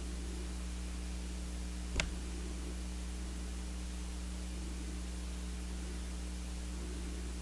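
Steady low electrical hum with hiss, and a single sharp click about two seconds in.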